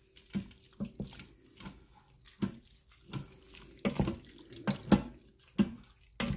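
Wooden spoon stirring thick, wet shredded-chicken chili in a stainless steel Instant Pot inner pot: wet sloshing and irregular knocks of the spoon against the pot, about one to two a second, over a faint steady hum.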